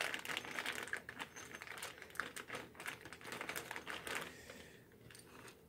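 Rapid light clicks and rustles of a package being handled as the wheel stabilizer's small parts are taken out, dying away about four seconds in.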